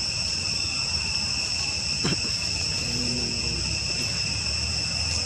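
Insects droning steadily at two high pitches, with a faint short low sound about two seconds in.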